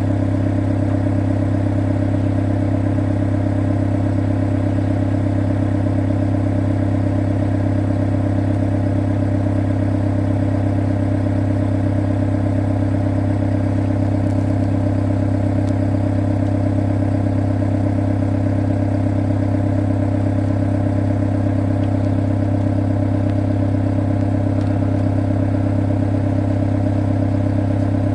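Excavator's diesel engine running at a steady, unchanging speed, a continuous low drone.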